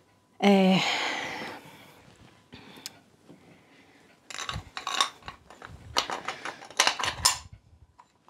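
Cast-iron parts of a vintage Porkert hand grain mill clinking and rattling against each other as they are fitted together, with many sharp metal clicks in the second half. Near the start there is a brief, louder pitched sound with a hissy tail.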